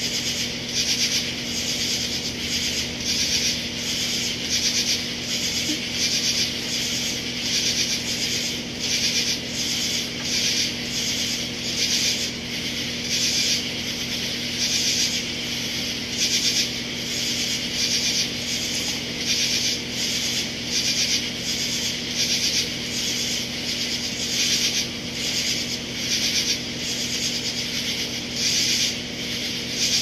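A chorus of katydids calling in rhythmic rasping pulses, about two to three a second, with a steady low hum underneath.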